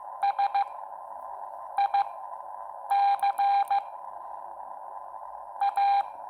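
Morse code sidetone from a Xiegu X6100 in CW training mode, keyed by hand on a Bencher BY-1 paddle: a single beeping tone sent in dits and dahs at slow speed, spelling S, I, C, A, the middle of the word "musical". A steady hiss fills the gaps between letters, and a faint click marks each element.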